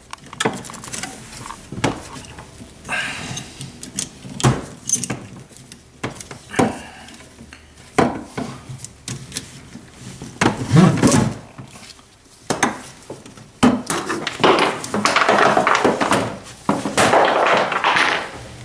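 Clicks, clinks and knocks of a metal ratchet tie-down strap and a wooden flat-pack cabinet being handled, with longer rasping sounds in the last few seconds.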